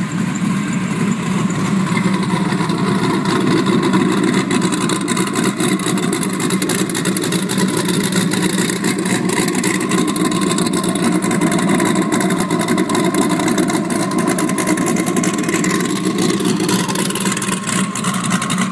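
Factory Five GTM's twin-turbo V8 idling steadily.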